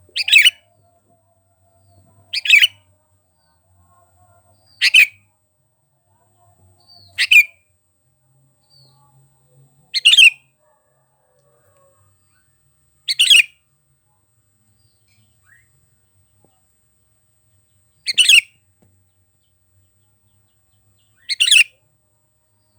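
Sooty-headed bulbul (kutilang) giving eight short, sharp calls, one every two to three seconds, with a longer pause after the sixth.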